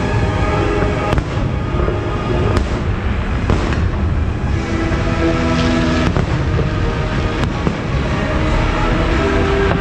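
Fireworks display: shells bursting in sharp bangs every second or two over a continuous low rumble, with the show's music running underneath.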